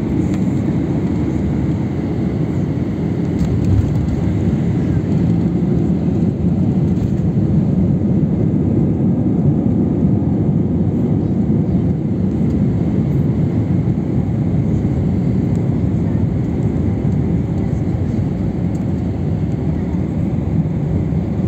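Steady low rumble inside a jet airliner's cabin as the plane rolls along the runway after landing, with engine and wheel noise blended into one even roar.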